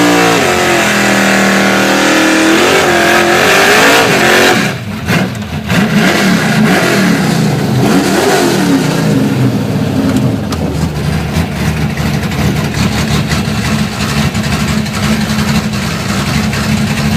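1967 Ford Falcon's engine revved hard during a burnout, with a hiss over the engine note for about the first four and a half seconds. The sound then drops suddenly and the engine keeps running under load, its pitch rising and falling for a few seconds before settling to a steadier drone.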